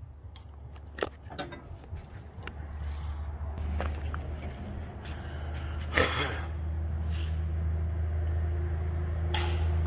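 Scattered clicks, clinks and knocks from a camera phone being carried and moved, over a low steady hum that grows louder from about a quarter of the way in.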